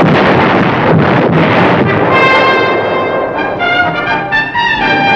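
Artillery fire and shell explosions making a dense din of repeated blasts. About two seconds in, brass music with sustained notes takes over.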